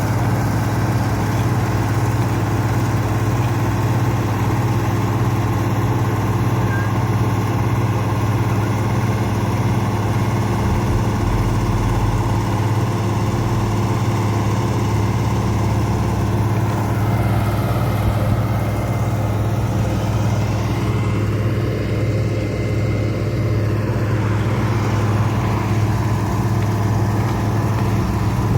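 Heavy diesel road-construction machinery at an asphalt paving job, most likely the paver, running steadily with a constant low drone. Partway through, a higher engine note shifts in pitch over several seconds.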